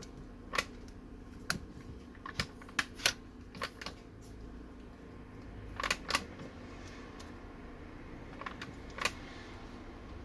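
Irregular sharp clicks and taps of small parts and tools being handled on an opened iPhone 6s during a battery swap, about a dozen in all, with pairs close together around the middle, over a faint steady hum.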